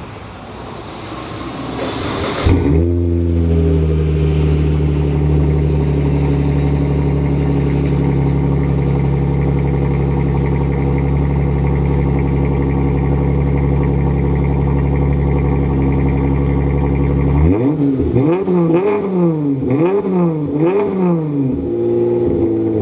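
Chrysler car engine cold-started with a partial exhaust delete (the two rear mufflers cut out for straight pipe, one centre muffler left): it cranks for about two and a half seconds, catches, and runs at a steady fast idle. Near the end it is revved several times in quick succession before settling back; a pretty decent sound, not too loud.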